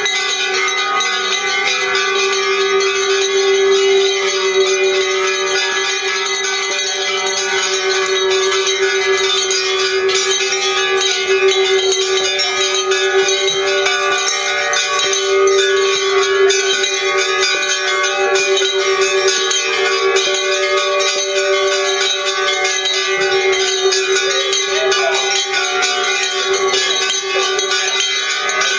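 Many bells rung together without pause, homemade handbells and bells on a rack. Their overlapping strokes blend into a continuous clangour of many pitches, with one strong lower bell tone ringing on throughout.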